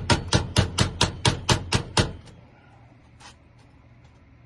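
Rapid hammer taps on the mailbox lock, about four a second, that stop after about two seconds; a few faint clicks follow.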